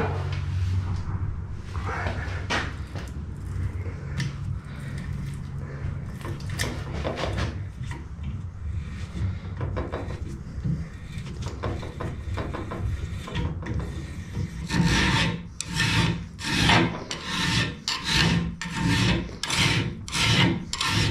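Hand tap in a T-bar tap wrench being turned to cut a thread in a steel bar held in a bench vise, with faint scrapes and clicks. About fifteen seconds in, a hand file starts rasping across the steel bar in steady strokes, a little over one a second, louder than the tapping.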